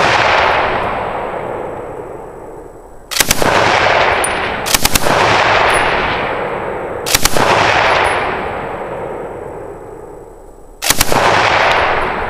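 A 1918 Browning Automatic Rifle firing .30-06 on full auto in short bursts of a few shots, about five times. Each burst is followed by a long echo that fades away over the next few seconds.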